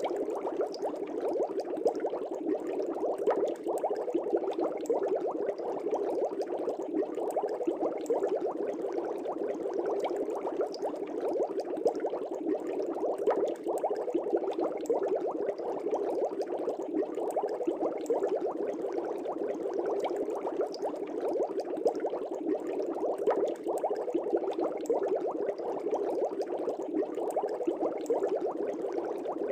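Aquarium air bubbles rising and breaking at the surface of a fish tank, a steady dense bubbling and splashing with many small pops.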